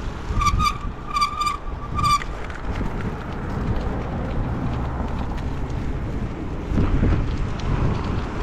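Wind buffeting the action-camera microphone over road and traffic rumble while riding a bicycle. In the first two seconds there are four short, high ringing tones.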